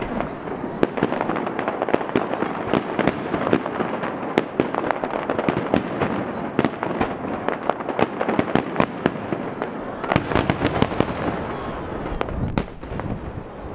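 Aerial fireworks shells bursting overhead: a dense, rapid string of sharp bangs and pops, with a loud flurry of reports about ten seconds in, thinning out near the end.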